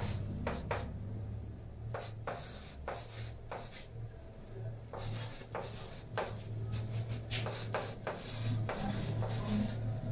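Chalk writing on a blackboard: a quick run of short scratching strokes and taps as symbols are written out, with a short pause about four seconds in. A steady low hum runs underneath.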